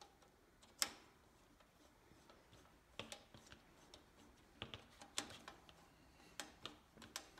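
Small metallic clicks and ticks from a hand tool being turned in a screw of the Ammco brake lathe's drum lock clamp. There is one sharp click about a second in, then a run of quicker, irregular clicks from about three seconds on.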